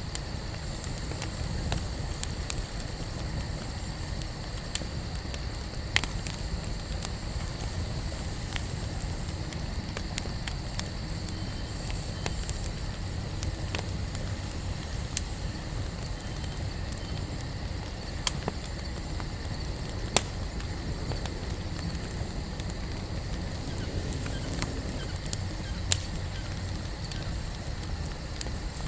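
Wood campfire burning with a steady low rumble, and sharp crackles and pops from the burning wood every few seconds.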